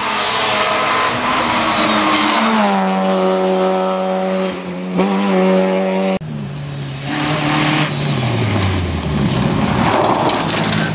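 Rally car engines at speed: one car's engine note falls as it comes off the throttle and then holds steady, then, after an abrupt cut about six seconds in, another car's engine drops in pitch in the same way, with hissing tyre and road noise underneath.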